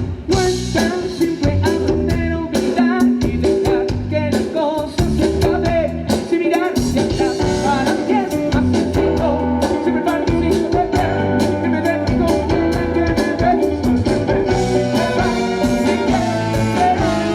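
Live rock band playing a song: electric guitar, bass and drums with a singing voice.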